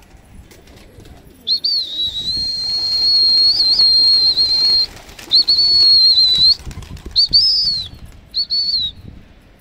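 A shrill whistle, one long steady note followed by three shorter ones, as a pigeon keeper sends his flock of domestic pigeons up to fly, with their wings flapping as they take off.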